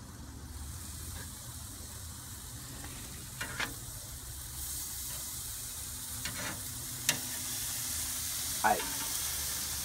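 Marinated chicken breasts sizzling on a hot kamado grill grate, the hiss swelling as the lid stands open and they are turned with metal tongs. A sharp click of the tongs comes about seven seconds in.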